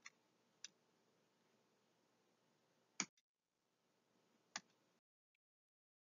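Near silence broken by four faint, sharp clicks: two in the first second, a louder one about three seconds in and one more a second and a half later. The sound then drops out completely for the last second.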